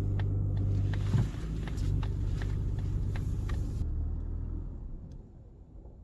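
Mazda CX-60 XD heard from inside the cabin while moving slowly: a steady low drivetrain hum with light regular ticks about two to three times a second. The sound fades out about five seconds in.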